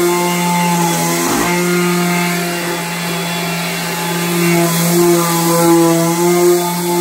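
Electric orbital sander with a rectangular pad, hooked to a dust-extraction hose, running steadily as it is worked across a dark-lacquered maple cabinet door, sanding the old finish down toward bare wood. It makes a steady hum whose higher tones waver in pitch as the sander moves and the pressure on the pad changes.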